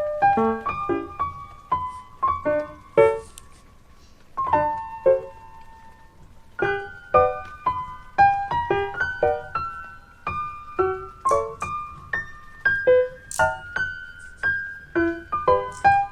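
Light background music on piano or keyboard, a bouncy run of short notes with a brief lull about four seconds in.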